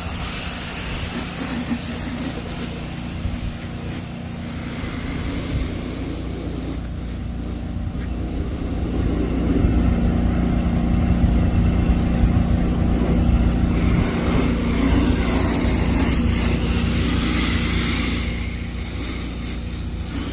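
Soft-wash spraying rig's motor and pump running steadily with a constant hum, with a hiss of spray over it, louder through the second half.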